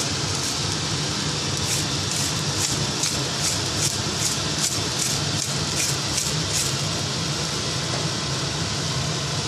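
Ground black pepper shaken from a shaker over fried rice in a wok: a run of about a dozen short, high rattling shakes, about two a second, over a steady hiss and low hum from the stove.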